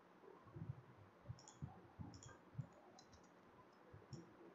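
Faint, irregular clicks of a computer mouse being clicked and moved while dragging blocks.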